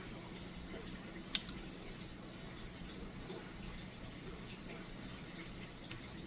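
A single sharp metallic click about a second and a half in, from small padlock parts being handled, over a faint steady low hum.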